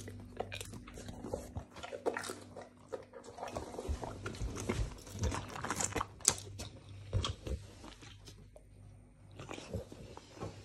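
Dogue de Bordeaux chewing close up, with irregular crunches and wet mouth noises, pausing briefly about eight seconds in.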